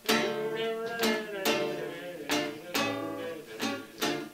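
Classical guitar strummed in a blues rhythm: about seven chord strokes, each left ringing until the next.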